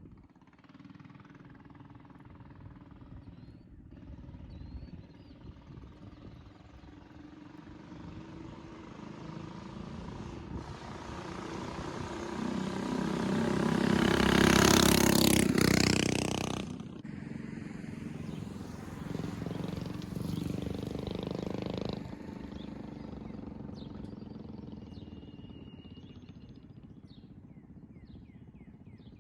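Motorbike engine fitted with a new Mikuni carburetor, running. The sound builds steadily to a loud peak a little past the middle, then drops away sharply and settles back to a lower running note.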